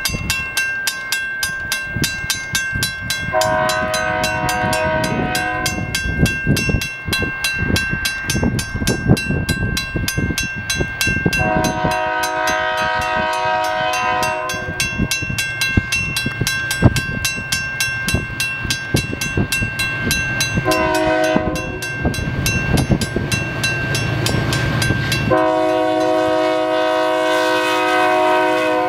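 Canadian Pacific SD40-2 diesel locomotives sounding the grade-crossing horn signal: two long blasts, a short one, then a long one held until the train reaches the crossing. Throughout, the crossing signal's bell rings rapidly and steadily.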